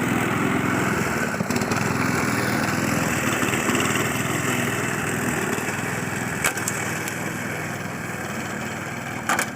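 Small petrol grass-cutting machine running steadily under load while cutting grass, with a sharp click about six and a half seconds in and a few more near the end.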